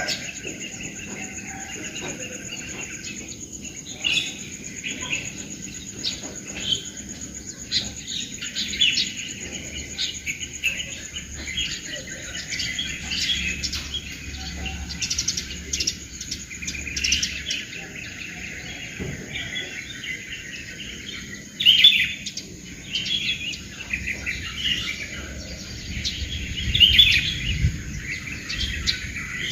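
Morning birdsong: many small birds chirping and twittering in short, overlapping calls, with the loudest bursts about two-thirds of the way through and near the end. A steady insect hum runs underneath.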